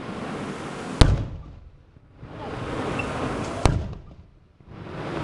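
Aerial firework shells bursting: two sharp bangs, about a second in and again near four seconds in, amid a rushing noise that swells and fades around each.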